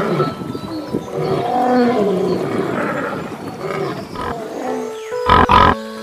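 Lion cubs growling and snarling as they play-fight, over background music. Near the end, held music notes come to the front and a short loud burst of noise sounds twice.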